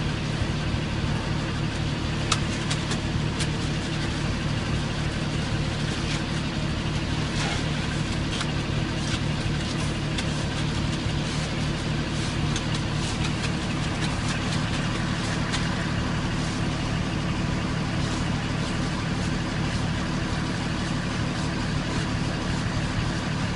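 Concrete mixer truck's diesel engine idling steadily, with scattered light knocks and scrapes of hand tools working wet concrete.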